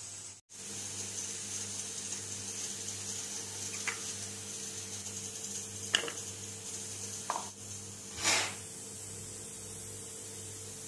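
A few light clicks and knocks as the clear plastic bowl of an electric chopper is handled and ginger pieces are dropped into it, the loudest about eight seconds in, over a steady low hum and hiss.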